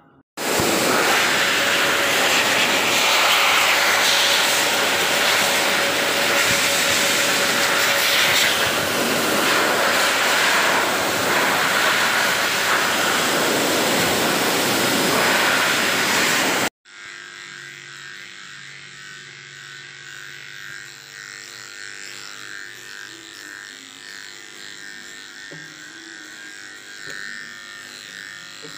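Pet hair dryer running, a loud steady rush of air that cuts off abruptly about 17 seconds in. Then corded electric dog clippers run with a much quieter, steady hum.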